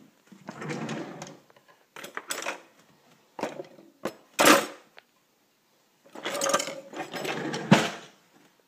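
Several short bursts of rattling and rustling handling noise close to the microphone. The loudest is about four and a half seconds in, and a longer run of rattling comes near the end.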